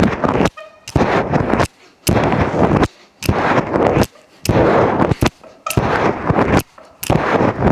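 Someone doing a fast set of kipping pull-ups: about seven loud noisy bursts, one with each rep and roughly a second apart, each starting with a sharp click.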